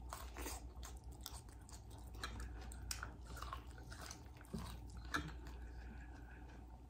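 Biting kernels off a sauce-coated ear of fried corn and chewing, as a run of many short crisp bites and wet chewing sounds.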